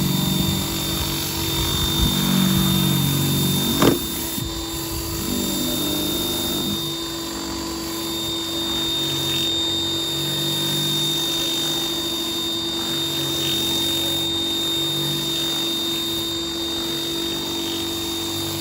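Pressure washer running steadily with a Westinghouse 15-inch surface cleaner attachment, a steady machine hum and whine. There is one sharp knock about four seconds in.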